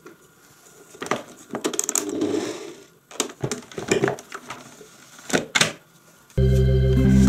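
A Bosch MUM 4419 kitchen machine's motor cuts off abruptly. Its plastic arm and speed dial are then handled, giving a series of clicks and knocks. Near the end the motor starts up again and runs steadily.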